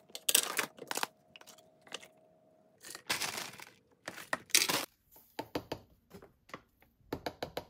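Rustling and crinkling of ingredient packets and scoops as smoothie ingredients are added to a blender cup, in several short bursts, with a quick run of clicks and taps in the last two seconds or so.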